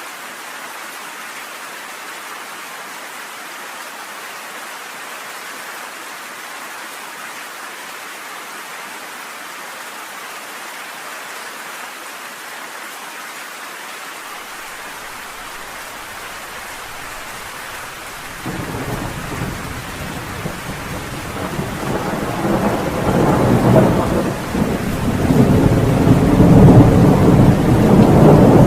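Steady heavy rain falling. About two-thirds of the way in, a roll of thunder breaks in suddenly with a deep rumble. It builds and is loudest near the end.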